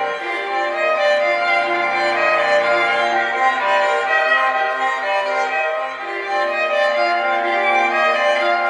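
Instrumental music with long held bowed-string notes over a low line that moves slowly to new notes.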